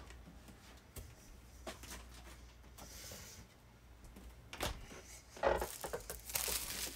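Faint kitchen handling noise as food packages are closed up and put away: scattered light clicks and knocks, two louder knocks about four and a half and five and a half seconds in, and plastic packaging rustling near the end.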